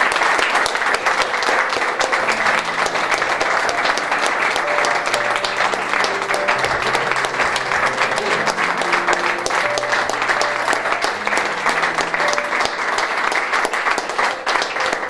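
A room of people applauding steadily, with music playing underneath.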